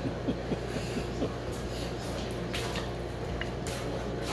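Wet chewing and mouth sounds of someone eating sushi, with a few small clicks and short smacking noises, over a steady low hum.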